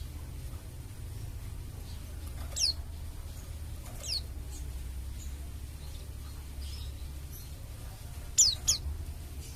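Pleci dakun bali white-eye calling: short, high notes that sweep downward, one about two and a half seconds in, another about four seconds in, and a quick pair near the end, with a few fainter notes between. A steady low hum runs underneath.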